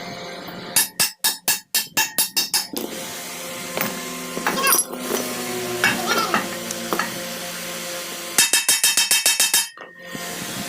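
Two runs of quick hammer blows on metal, about five a second, one starting about a second in and a faster one near the end. In between are ringing metallic tones and a brief voice.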